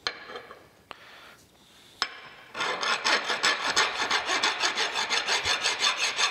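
A metal milling-machine feed handle being rubbed back and forth across a flat file lying on the bench, in quick rasping strokes several times a second, to file dings off its mating face. A few light clicks come first, as the part is set on the file, and the filing starts about two and a half seconds in.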